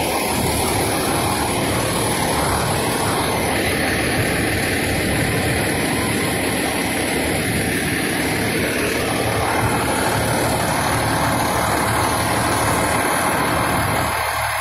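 Fire engine's diesel engine idling close by, a steady loud rumble and whir. The lower part of the sound falls away suddenly near the end.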